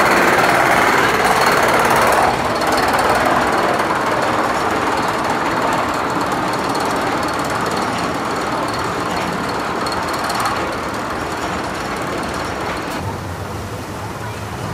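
Roller coaster train being hauled up the chain lift hill, a rapid, steady mechanical clatter that grows gradually fainter as the train climbs away.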